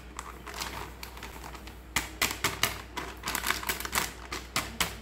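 Plastic flour packet crinkling and crackling as it is squeezed and shaken to empty maida flour into a glass bowl, the crackles turning into a rapid irregular run of sharp clicks about two seconds in.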